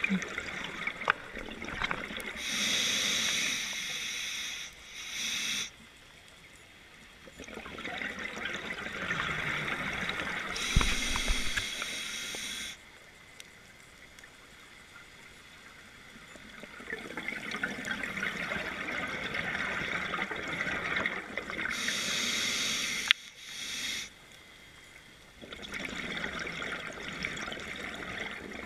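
Scuba diver breathing through a regulator underwater: slow breathing cycles of regulator hiss and bursts of bubbling exhalation, about three breaths.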